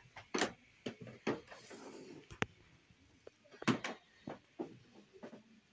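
Irregular short knocks and clicks, about nine of them, the loudest a little past halfway.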